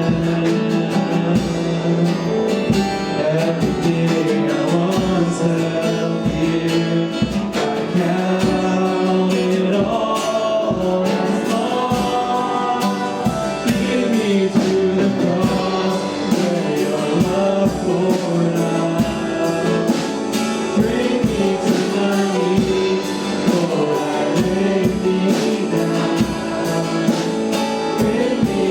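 Worship song sung with guitar accompaniment, voices carrying the melody over a steady strummed rhythm.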